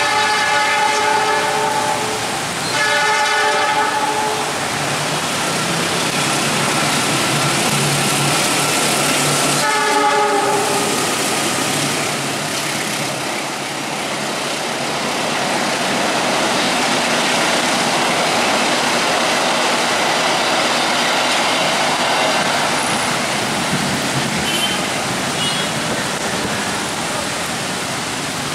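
Diesel locomotive horn sounding three blasts: one long blast at the start, another about three seconds in, and a short one about ten seconds in. Then a steady rushing hiss of heavy rain and a passing train.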